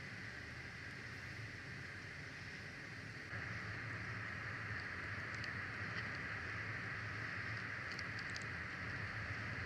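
Steady outdoor wind noise and hiss on a nest camera's microphone, getting a little louder about three seconds in, with a few faint high ticks later on.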